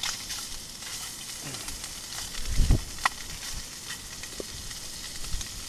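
Steady hiss and sizzle of a camping gas canister stove cooking a pot of casserole, with a low knock and a sharp clink of a utensil about two and a half to three seconds in.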